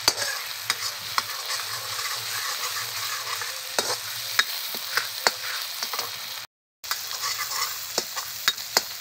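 Spice paste and turmeric sizzling as they fry in oil in a metal kadhai, stirred with a metal ladle that clinks and scrapes against the pan at irregular moments. The sound cuts out for a split second about two-thirds of the way through.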